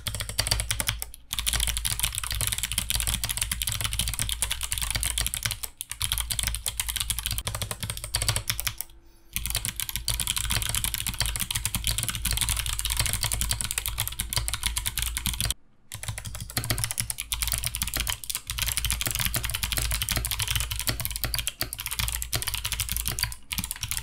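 Fast, continuous typing on a hot-swap mechanical keyboard fitted in turn with Kailh BOX Jade, Kailh BOX Navy and NK Sherbet clicky switches, every keystroke a sharp click made by the switch's click bar. The typing stops briefly several times.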